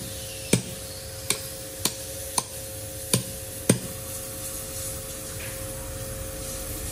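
A hammer striking steel spikes driven into the base of a large log to hold it on its wooden cradle: six sharp metallic strikes, unevenly spaced, over the first four seconds, then they stop. A steady machine hum runs underneath.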